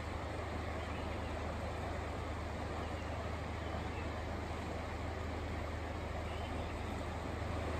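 Steady roar of a river in flood, fast water rushing past: a constant deep rumble under an even hiss.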